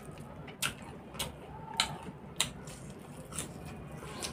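A person chewing and biting crunchy raw greens close to the microphone, with about six sharp crunches spread across the few seconds.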